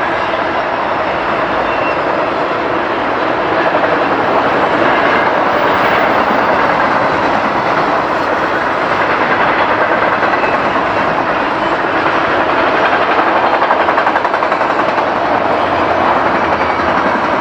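BNSF freight train rolling past at close range: a steady, loud wash of rail and wheel noise that grows a little louder a few seconds in.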